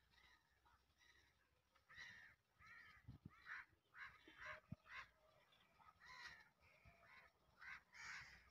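Crows cawing faintly, about a dozen short calls in a row.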